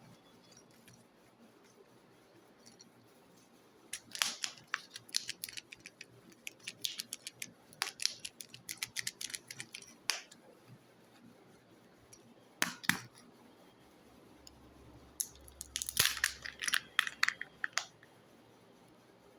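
Kinder egg packaging being handled and unwrapped: sharp crinkling and crackling of foil and plastic wrapper, with small plastic clicks, in three bouts separated by quieter pauses.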